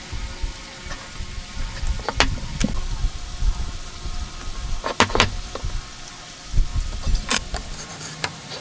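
Marking-out tools handled on a timber block and bench: a steel square, pencil and wooden marking gauge knocking and tapping against the wood. A few sharp clicks come in pairs about two and five seconds in, and a brighter knock follows about seven seconds in.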